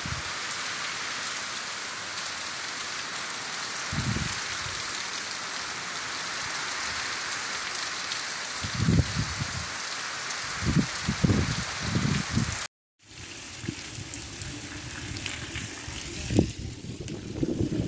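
Heavy rain falling steadily, a dense hiss with a few low rumbles in it. About two-thirds through, the sound breaks off for a moment and a second stretch of rain follows, quieter and lower.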